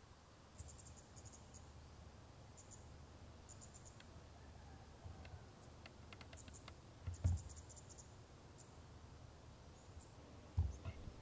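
Quiet outdoor ambience with short trains of high-pitched insect chirps repeating on and off, over a faint low rumble; two brief low thumps about seven and ten and a half seconds in.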